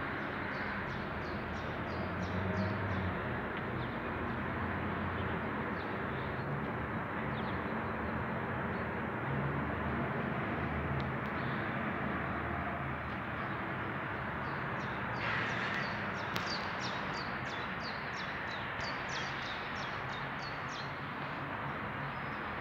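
A vehicle engine running steadily under a general outdoor hum, with small birds chirping in quick runs of short high notes, a few early on and many more in the last third.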